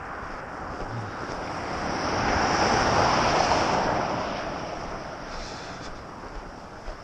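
Cars passing on a snow-covered road: the noise of their tyres and engines swells to a peak about three seconds in, then fades away.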